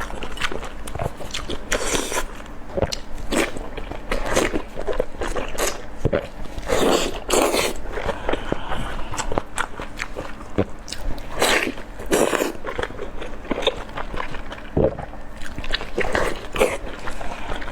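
Close-miked eating sounds: a person biting into and chewing large thin-skinned steamed dumplings, with a run of irregular wet mouth clicks and bites.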